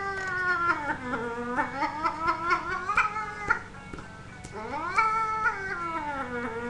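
Cat caterwauling in two long, drawn-out yowls. The first sinks in pitch and then climbs again. The second starts high about four and a half seconds in and slides down to a low, wavering moan.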